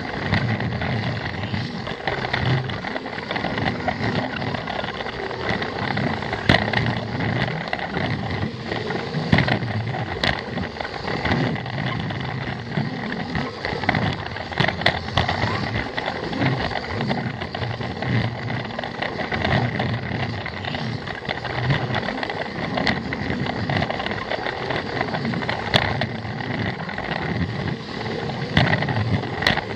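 Plarail toy train's electric motor and gearbox whirring steadily with a high whine as it runs along plastic track, wheels rattling, with occasional sharp clicks.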